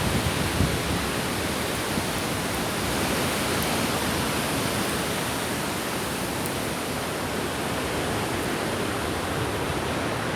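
Storm wind in the wake of a small tornado, a steady, even rushing roar with no distinct hits.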